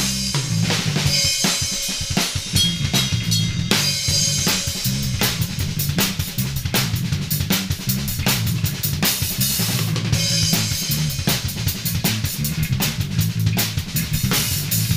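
Drum kit and bass guitar improvising a funk groove together: fast, busy kick, snare and cymbal strokes over a moving bass line.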